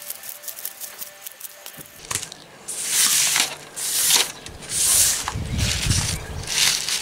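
Dry shredded packing straw rustling and crackling as hands gather and press it into a nest, in four or five loud bursts from about three seconds in, with a dull low thud in the second half.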